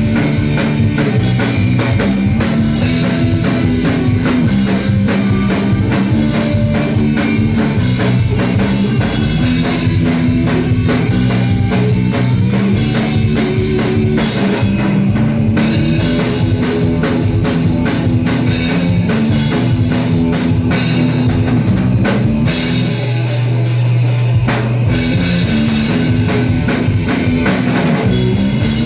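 A rock band playing: a drum kit drives a fast beat under guitar, while a bass line steps between a few notes.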